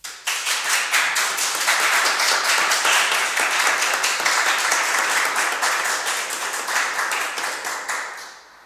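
An audience applauding with many hands clapping. It starts suddenly and dies away near the end.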